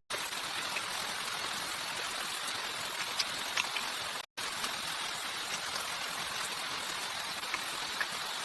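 Steady rushing noise like running water, with a few faint ticks, cut off for a moment just after four seconds in.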